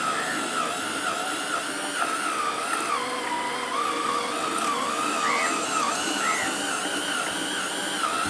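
Makita cordless drill driving a hand-crank meat grinder's auger, its motor whine wavering in pitch as the load changes while chunks of meat are fed in and minced.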